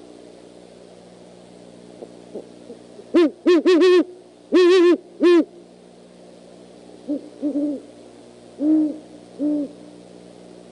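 Great horned owl hooting: a rapid run of loud, wavering hoots about three seconds in, then a longer hoot and a short one, followed by softer hoots near the end, three close together and then two.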